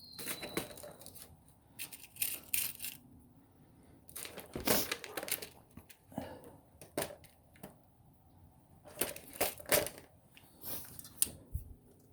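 Irregular clicks, taps and crackly rustling of hand work on wiring: a jumper wire being handled and its connector pushed onto an ignition switch terminal.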